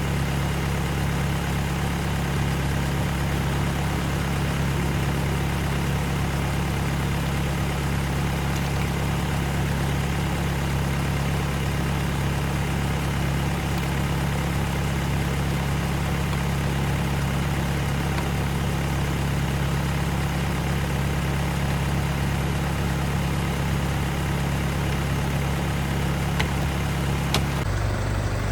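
Isuzu Elf dump truck's diesel engine idling steadily with a low, even throb. Its pitch shifts abruptly just before the end.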